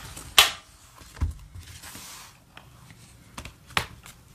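Hands handling a Moterm pebbled-leather rings planner: a few sharp clicks, one about half a second in and one near the end, and a soft thud about a second in, with faint rustling between.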